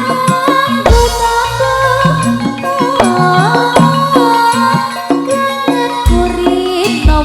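Campursari music, the Javanese popular style played for tayub dancing: a melodic lead that slides between notes over a steady beat, with deep drum strokes about a second in and again about six seconds in.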